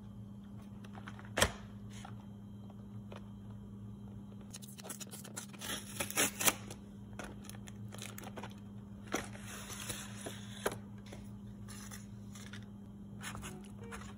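Plastic blister packaging being opened by hand: tape peeled off its card, the clear plastic crinkling, with scattered sharp clicks and rustles, a loud click about a second and a half in. A steady low hum runs underneath.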